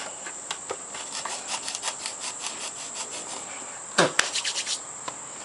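Crickets trilling steadily and high-pitched, with scattered light clicks and a sharper knock followed by a quick run of ticks about four seconds in.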